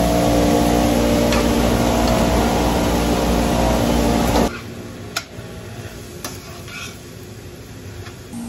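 Cooking in a stainless frying pan on a gas stove: food frying with a steady hum behind it and a metal spoon clicking against the pot and pan as cooked papaya is scooped in. About four and a half seconds in, the sound drops suddenly quieter, leaving a few spoon clicks and scrapes.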